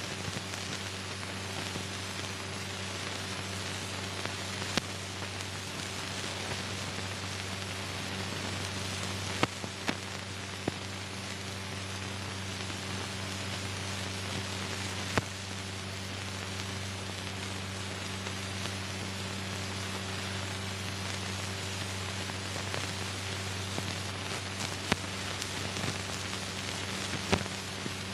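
Steady hiss and low hum of an old film soundtrack carrying no recorded sound, with a few sharp clicks and pops scattered through.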